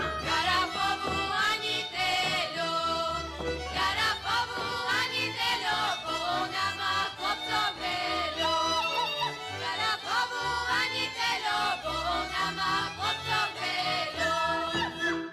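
Slovak folk string band of fiddles and bass playing a lively dance tune from Šariš, with group singing over it; the music breaks off at the very end.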